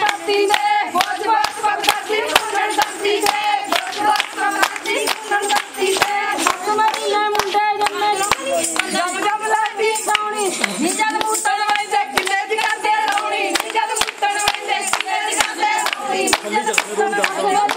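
A group of women singing Punjabi boliyan together, keeping time with steady rhythmic hand-clapping, about three claps a second, as in giddha.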